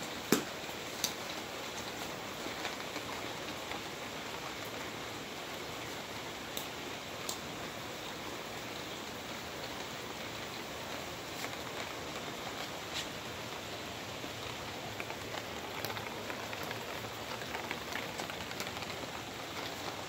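Steady rain falling on a wet concrete patio, an even hiss with scattered sharp taps of drops, the loudest about half a second in.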